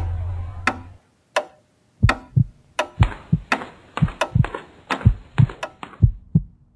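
Cartoon footstep sound effects: quick soft taps, each with a low thud, about two to three a second, starting about two seconds in. Before them, a low boom dies away over the first second.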